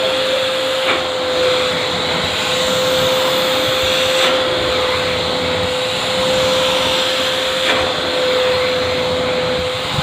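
AmazonBasics wet-and-dry vacuum cleaner running steadily with a constant whine over a rush of suction as its floor nozzle is pushed across a rug. A few light knocks come through, about a second in, around four seconds in and near the end.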